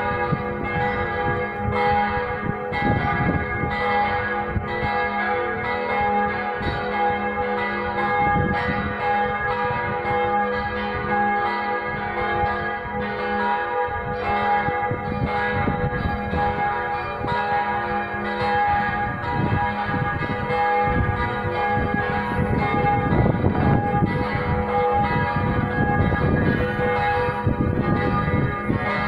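Four church bells ringing together in a partial peal, their strokes overlapping in a continuous clang over a bed of long-held ringing tones.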